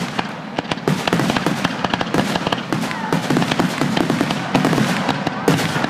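Fireworks going off in quick succession: a dense run of sharp pops, bangs and crackles.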